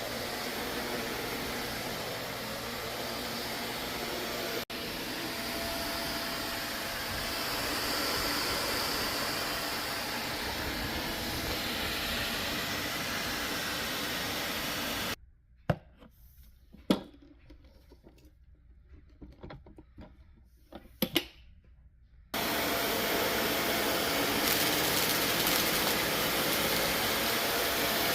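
Vacuum cleaner running steadily. About halfway through it cuts off abruptly. A few seconds of quiet follow, broken by four or five sharp knocks, then it is running again.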